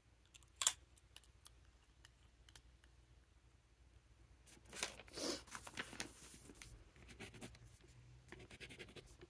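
Small handling noises from a freshly filled fountain pen: a sharp click about half a second in, rustling and scraping in the middle, then faint scratching of the steel nib on paper near the end.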